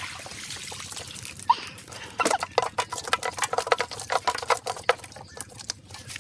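Water splashing in shallow water, with a quick, irregular run of sharp splashes from about two seconds in.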